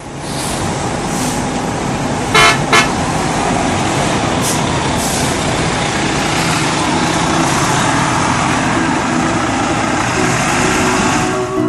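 Steady road-traffic noise, with a vehicle horn honking twice in quick succession about two and a half seconds in.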